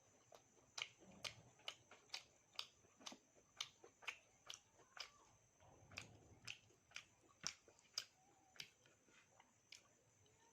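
Close-miked chewing with a sharp wet mouth click or crunch about twice a second, in a steady rhythm.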